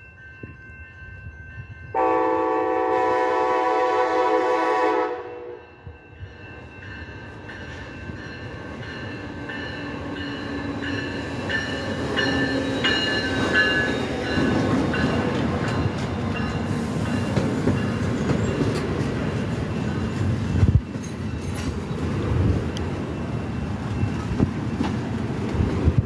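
A Capitol Corridor passenger train sounds a multi-tone horn chord for about three seconds. It then rolls in and passes close by, its wheel and rail noise building steadily. A sharp knock comes about twenty seconds in.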